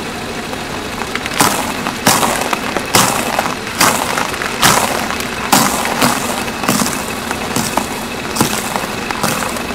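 A car tyre crushing stacks of dry round biscuits: a series of about ten short crunches, roughly one a second, starting about a second and a half in, over a steady background noise.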